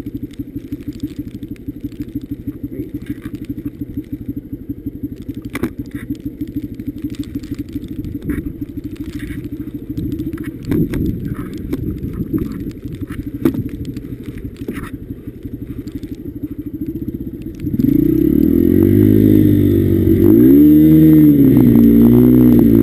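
Honda CRF150F dirt bike's single-cylinder four-stroke engine running at low revs with a fast, even beat. About eighteen seconds in it gets louder and revs up and down several times.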